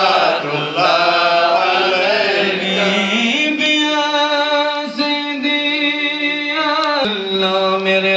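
Men's voices chanting devotional verses together in unison, with long drawn-out notes; about three seconds in the melody settles on a sustained low note that breaks off a little before the end.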